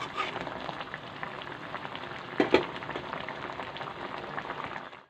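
Thin egg curry gravy bubbling and sizzling in a steel kadai as its water cooks down, with two sharp clicks about two and a half seconds in.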